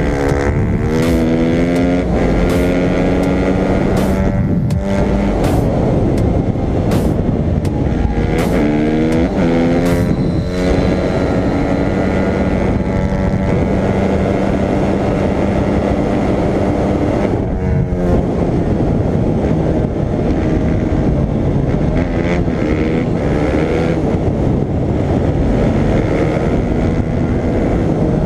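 Dirt bike engine running hard at speed, its pitch climbing in several runs with gear shifts between them, then holding steady for a long stretch before climbing again.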